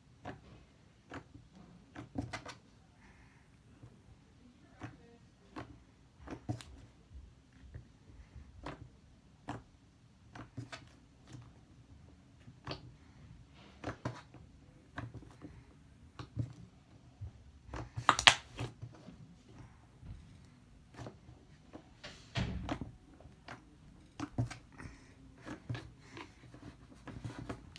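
Stretchy slime being handled and stretched by hand: faint, irregular sticky clicks and pops, with a louder cluster about 18 seconds in.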